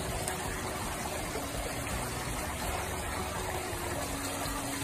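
A steady rushing noise with a faint steady hum underneath.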